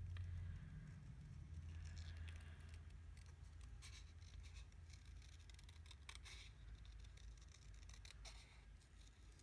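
Paper snips cutting cardstock: faint, irregular snips starting about two seconds in, over a low steady hum.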